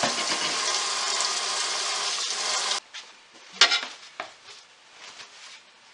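Kitchen tap water running and splashing in a stainless steel sink while a glass printer bed plate is washed; the steady hiss cuts off suddenly about three seconds in. After that come quiet handling and towel rustling, with one sharp knock.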